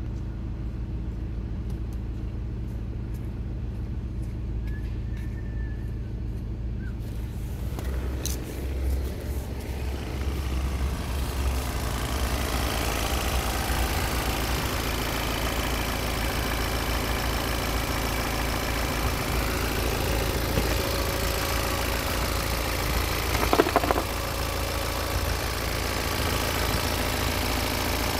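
BMW N47D20C 2.0-litre four-cylinder turbodiesel idling steadily. It sounds muffled from inside the cabin at first, then louder and clearer from the open engine bay from about ten seconds in. There is one brief knock near the end.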